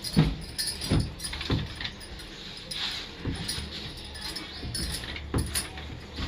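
Scattered light clicks and knocks of small objects being handled, about six over a few seconds, over a low steady hum.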